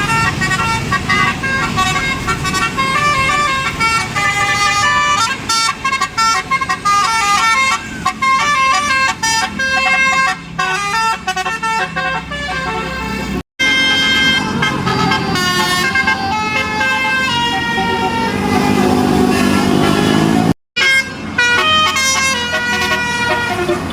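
Telolet basuri multi-tone bus horn playing quick melodic runs of stepped notes, with a bus engine running underneath. The sound breaks off abruptly twice and starts again with a new tune.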